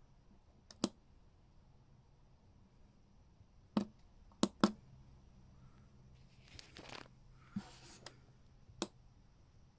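Push-button on an Intelli-Power remote pendant clicking as it is pressed to cycle the RV converter's charge modes: about six sharp clicks, two of them in quick succession in the middle, with a soft rustle of fingers on the case between the last clicks.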